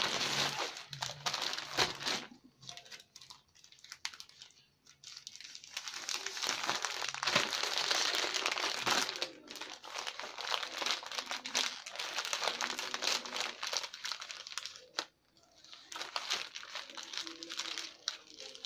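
Plastic courier mailer bag crinkling as it is handled and cut open with scissors. The sound comes in stretches broken by short pauses.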